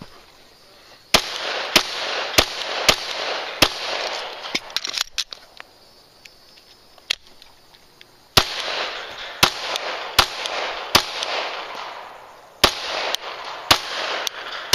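Glock 17 9mm pistol firing in quick strings of shots, roughly one every half second or so, each shot echoing. A run of about five shots, a pause of about four seconds with only a few faint clicks, then two more runs of about four shots each.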